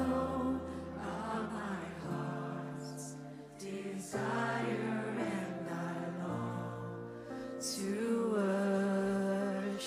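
Slow live worship-band music: voices singing long, wavering notes over held keyboard and bass chords that change about every two seconds.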